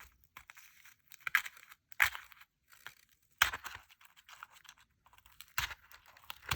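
Paper and card being handled: five or six short, scratchy rustles, irregularly spaced, with quiet between them.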